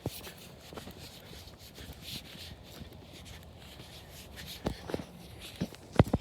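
Footsteps of a person walking, faint at first, with a few distinct steps in the last couple of seconds, the loudest near the end.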